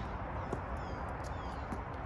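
Faint sounds of a tennis rally between shots on a hard court: a soft ball bounce and light footsteps, with birds chirping.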